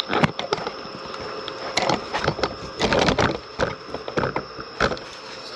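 Camera handling noise: a string of irregular knocks, clicks and rustles as the camera is set down and positioned on a surface.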